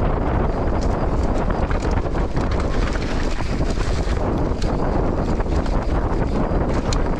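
Wind rushing over the camera microphone as a mountain bike rides fast down a dirt trail, with tyre rumble and frequent short clicks and rattles from the bike over rough ground.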